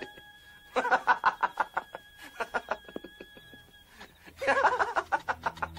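Two bursts of rapid, pulsing laughter, the second starting about four and a half seconds in, with a faint steady high tone under the first.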